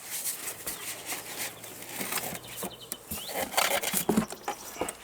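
Rustling, rubbing and clicking of packaging and parts being handled as a meat grinder is taken out of its box, with irregular small knocks and scrapes.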